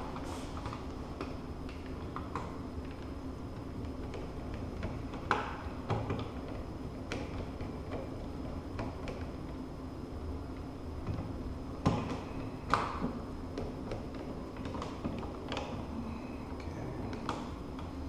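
Scattered light clicks and scrapes of a hand screwdriver and screws against a plastic four-gang switch wall plate as its mounting screws are started and turned in, over a steady low hum.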